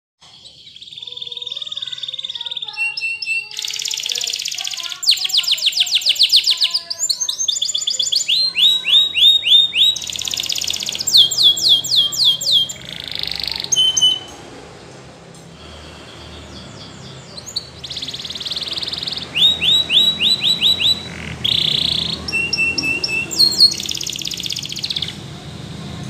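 Domestic canary singing: phrases of fast trills and rolls of rapidly repeated notes, high and piercing, with a quieter gap of a few seconds a little past the middle before the song picks up again.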